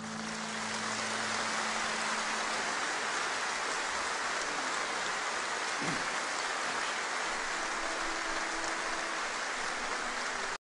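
Concert audience applauding steadily at the end of a song, with the last acoustic guitar chord dying away under it in the first couple of seconds. The applause cuts off abruptly near the end.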